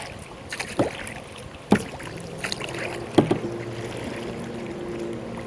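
Kayak paddling, with paddle strokes in the water and four sharp knocks. After one knock a ringing tone lingers for about two seconds.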